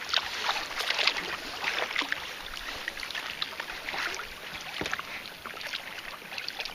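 Kayak paddle strokes dipping into and pulling through lake water, with repeated splashes and drips.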